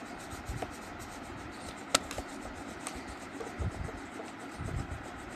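Colouring strokes rubbing on paper, a steady scratchy rub made of many quick repeated strokes, as a drawing is filled in. A sharp click about two seconds in.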